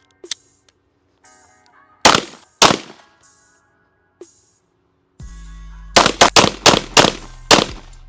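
Gunfire: two single shots about half a second apart, then after a pause a rapid string of shots, about four a second, starting near the end.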